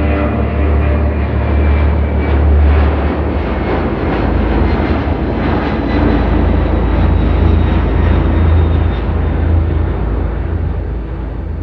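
Aircraft engine noise: a loud, steady low rumble with a rushing hiss on top, easing slightly near the end.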